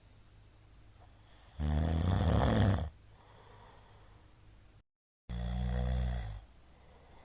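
A middle-aged man snoring loudly in his sleep: two snores about three and a half seconds apart, each lasting about a second. Just before the second snore the sound cuts out completely for about half a second.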